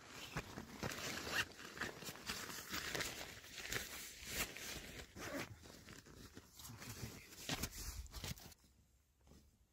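Heavy canvas bag being lifted and carried, its fabric rustling and scraping, with footsteps crunching on dry stubble. The sound drops away to faint near the end.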